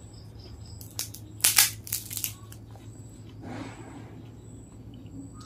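A crisp kerupuk cracker crackling and snapping, with loud sharp crunches about one and a half and two seconds in, then a softer rustle.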